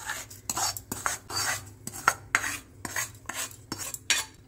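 A white spatula scraping dry-roasted semolina across a non-stick kadai and into a steel bowl, in about a dozen quick strokes, roughly two or three a second.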